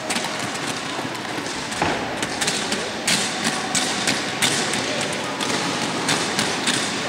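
Roller skis rolling and clattering on a hard rink floor, their wheels giving a steady rolling noise broken by many sharp taps and knocks as the skis are set down and stepped through an agility course.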